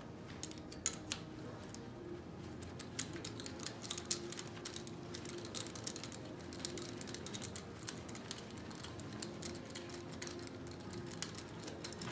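A hand tool works on the cylinder head of a Mercedes OM642 3.0 V6 diesel, making a long run of small, quick metal clicks and clinks like a ratchet wrench turning. This is the compression-test fitting being moved from one cylinder to the next.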